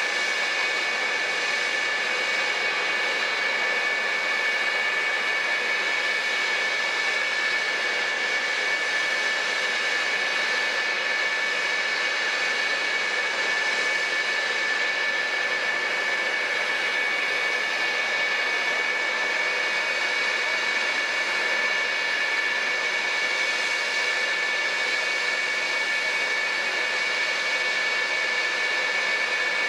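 The twin General Electric J79 turbojets of a parked F-4EJ Phantom II idling: a steady jet whine with two high, constant tones over a rushing noise, unchanged throughout.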